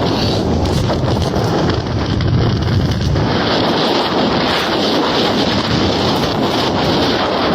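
Strong wind buffeting the microphone, with a heavier low rumbling gust from about one to three seconds in.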